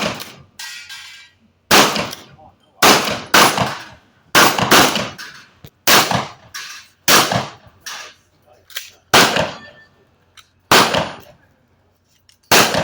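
Shotgun fired in a rapid string of about a dozen shots at steel plate targets. The shots come unevenly, roughly one a second, each with a short fading tail.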